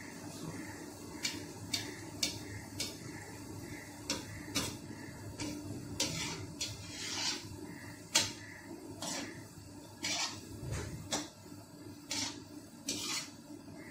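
Gulab jamun balls sizzling as they fry in hot ghee in a metal kadai, with a metal skimmer clinking and scraping against the pan again and again from about a second in as the balls are turned.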